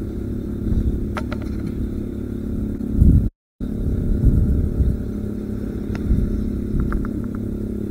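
Wind rumbling on the microphone over a steady low hum, with a few faint clicks from handling the rod and reel. The sound cuts out briefly about three seconds in.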